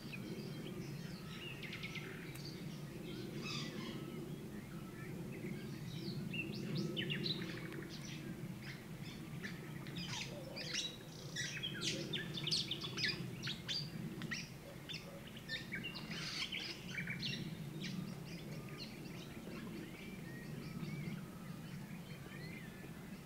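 Songbirds singing at dusk: many quick, varied phrases and chirps overlapping, busiest in the middle, over a steady low background hum.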